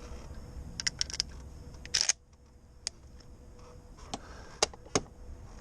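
A gun being loaded by hand: a scatter of sharp metallic clicks, three or four close together about a second in, a louder short clack at two seconds, then single clicks spread through the rest.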